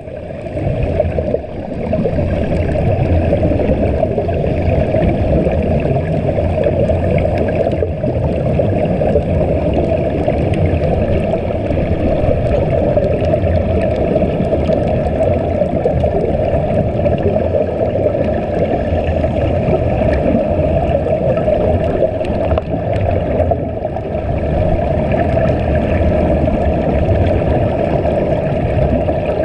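Steady muffled underwater rumble and bubbling from air streaming out of sea-walking diving helmets, recorded with the camera underwater.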